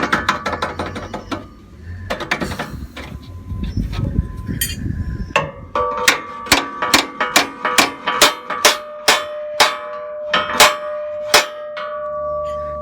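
Quick ratcheting clicks near the start, then a hammer striking metal about a dozen times, roughly two blows a second. Each blow leaves a metallic ring that hangs on after the last one.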